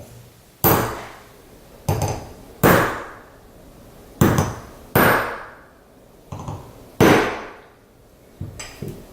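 Hammer striking a metal snap-setting tool to set a metal snap through fabric on an anvil: about six sharp, ringing blows at uneven intervals, then a few lighter taps near the end.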